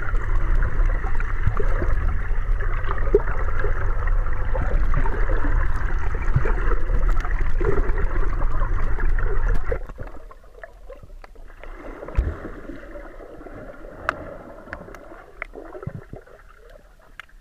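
Muffled rushing of water heard through an underwater camera's housing, a loud low rumble that drops suddenly about ten seconds in to a quiet hiss with scattered small clicks.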